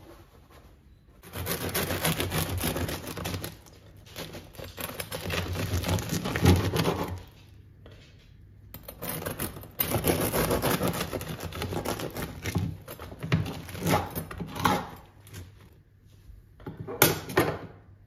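Serrated bread knife sawing through the hard crust of a freshly baked loaf on a wooden board: crackly, scraping strokes in several long runs, with a sharp knock near the end.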